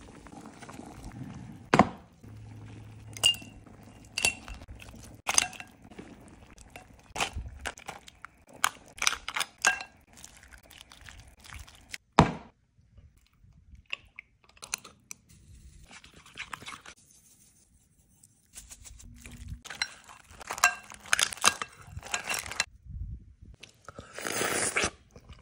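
Glass pot lid, spatula and bowls clinking, knocking and scraping as a seafood boil is served out of a small electric pot. The sounds come as irregular single clicks and clinks, some ringing briefly, with quiet gaps between them and about a second of rushing noise near the end.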